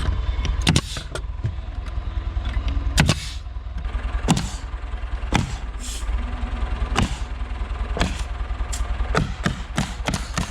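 Irregular sharp knocks and bangs of framing carpentry, a dozen or more of them, some with a short hissy tail, over a steady low rumble.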